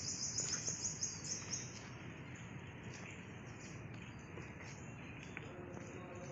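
Outdoor garden ambience: a high chirp repeated about three times a second for the first couple of seconds, then only a faint, steady background of chirping.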